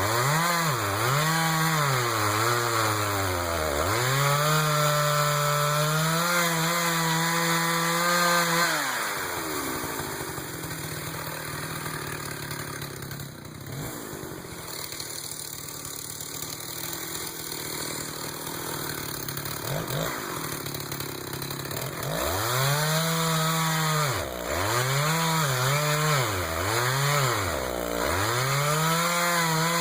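Jonsered 820 two-stroke chainsaw cutting a cedar: revved up and down in quick bursts and held at high revs, then running quieter for about thirteen seconds in the middle, before revving in repeated bursts again near the end.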